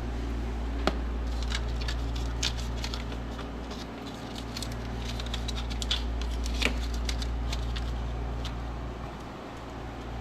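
Scattered small clicks and snaps of spark plug wires and boots being handled and fitted onto the engine, over a steady low hum.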